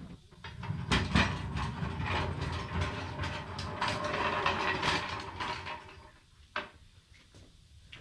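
Floor jack being worked to lift the car: dense metallic ratcheting and clicking for about five seconds, then a single sharp click near the end.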